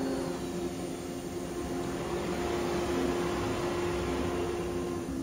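Shop Sabre CNC router running, its spindle set to 16,000 RPM and its dust-collection hose drawing air. It makes a steady hum with a hiss over it.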